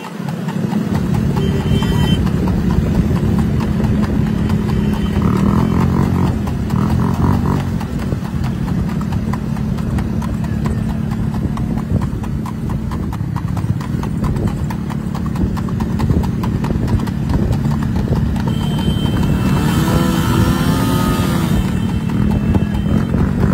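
Horse's hooves clip-clopping in a fast trot on asphalt as it pulls a two-wheeled racing cart, over the steady running of a motorcycle engine alongside. Voices call out a few times, most clearly near the end.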